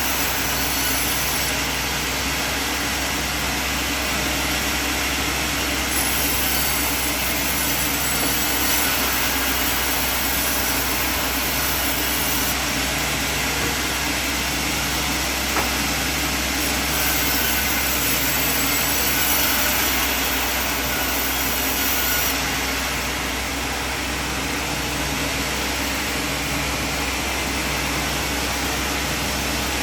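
Sawmill machine running steadily, with a constant low hum under an even mechanical noise.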